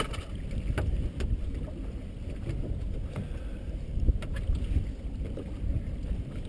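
Wind buffeting the microphone aboard a small open boat at sea: an uneven low rumble, with a few light clicks and knocks.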